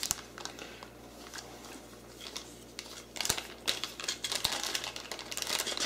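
A small clear plastic zip-lock bag being pulled open and handled, crinkling in quick irregular crackles that pick up about three seconds in.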